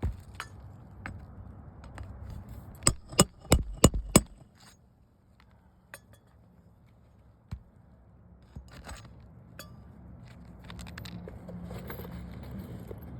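Five quick, sharp metal strikes about three a second, roughly three to four seconds in, from a roof snake (slide-hammer nail driver) driving roofing nails through asphalt shingles, with lighter metallic clinks and ticks later on.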